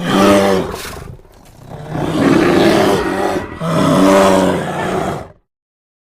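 A large animal's loud call, one shorter call and then two longer ones, stopping about five seconds in.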